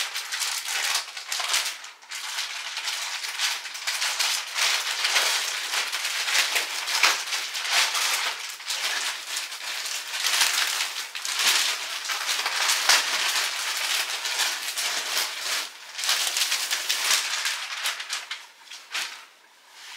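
Packaging and bedding rustling and crinkling as a comforter is unwrapped and pulled out of its bag, a busy run of crackles that dies down near the end.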